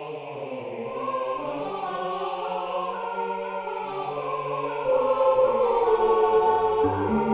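Background music: sustained chords that swell a few seconds in, with a pulsing bass line coming in near the end.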